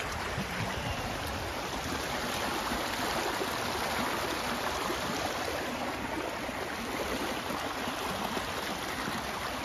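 A brook swollen with floodwater after a storm, running fast with a steady, even rush of water.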